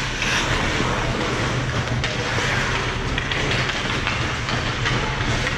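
Ice hockey play: skates scraping and carving on the ice, with a few sharp clicks of sticks and puck, over a steady low hum.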